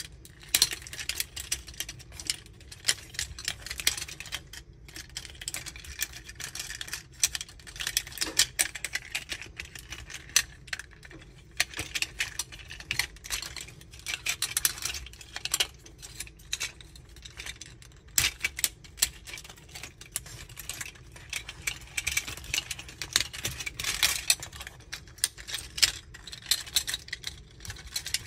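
Plastic parts of a transforming robot action figure clicking, snapping and rattling as they are quickly folded, twisted and locked into place by hand. Many irregular sharp clicks follow one another, with bursts of them close together.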